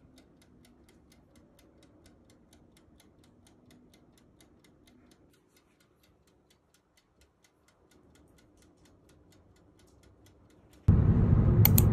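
Faint, fast, even ticking, typical of a toaster oven's wind-up timer running. Near the end it cuts abruptly to loud, steady road noise inside a moving car.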